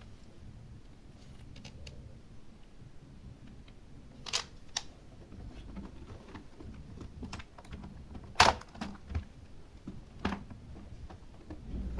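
Scattered plastic clicks and knocks from a keyboard's casing and parts being handled and fitted together, with one louder knock about eight seconds in.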